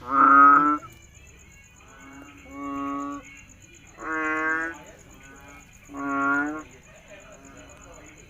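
Frog giving a series of long, deep, pitched calls: four loud calls, each under a second, about every two seconds, with a fainter call between the first two.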